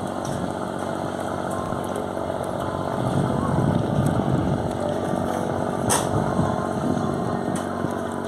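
Boat engine running steadily with an even low hum, and one sharp click about six seconds in.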